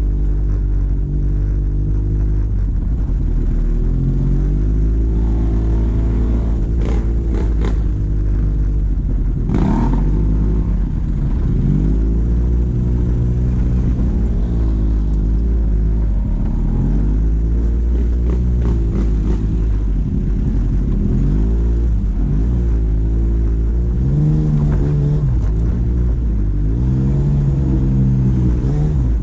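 ATV engine running on a rough trail ride, its revs rising and falling as the throttle is worked, with a few short knocks partway through.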